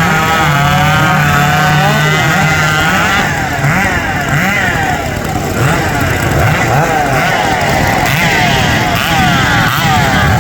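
Hot saw racing chainsaw engines running loud at high revs. One engine holds a steady, wavering pitch for about three seconds. After that the engines rev up and down over and over, their pitches rising and falling across each other.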